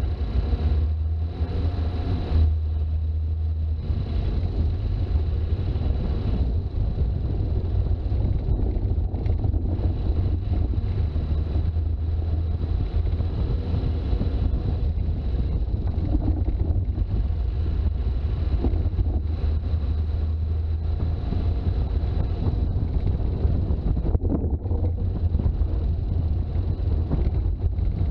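Toyota HJ61 Land Cruiser with its 12H-T turbodiesel straight-six driving on the road: a steady low engine and road rumble.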